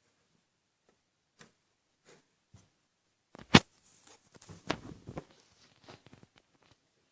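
Scattered light clicks and knocks of objects being handled. One sharp, loud click comes about three and a half seconds in, followed by a short cluster of knocks.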